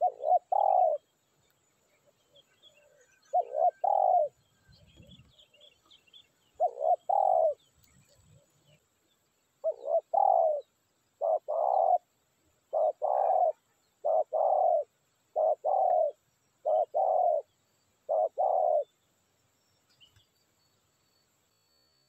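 Spotted dove cooing, about ten two-part coos, each a short note followed by a longer one; they come a few seconds apart at first and then in quicker succession through the second half.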